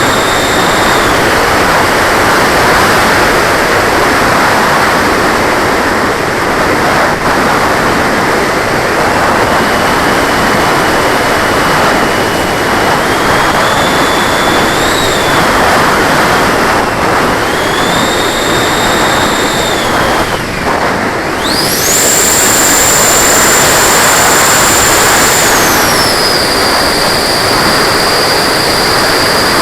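A 90 mm electric ducted fan whining over a loud rush of air, heard from on board the RC jet. The whine dips and rises with throttle a few times, then climbs steeply about two-thirds through, holds high for a few seconds and settles lower near the end.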